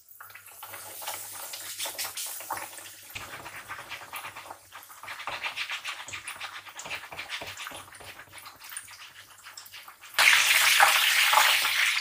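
Breaded schnitzel shallow-frying in hot oil: a continuous crackling sizzle with many small pops, starting as the cutlet goes into the oil and getting much louder about ten seconds in.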